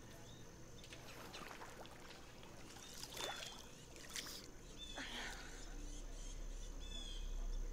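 Faint lake ambience: a swimmer's quiet splashing strokes in the water and a few short bird chirps, with a low rumble swelling from about five seconds in.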